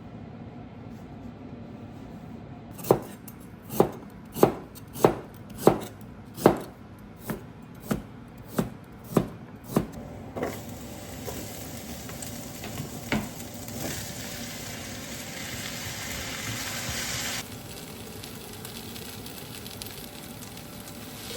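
A kitchen knife chopping on a cutting board: about a dozen even strokes, roughly one every half second. Then a steady hiss that grows louder and stops abruptly.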